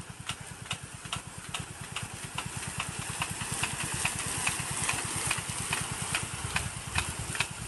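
An engine running steadily with a fast low pulse, with regular sharp ticks about two or three times a second. The hiss of a rain gun sprinkler's water spray swells in the middle.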